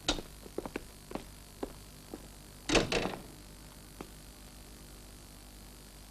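Footsteps on a hard floor, a row of separate knocks, then a door shutting about three seconds in, the loudest sound, followed by one last faint knock.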